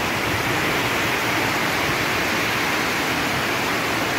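Steady rush of fast-flowing storm floodwater running down a street, with heavy rain.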